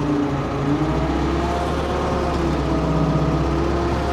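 Excavator's diesel engine running steadily; its tone dips and shifts briefly in the first second, then holds level.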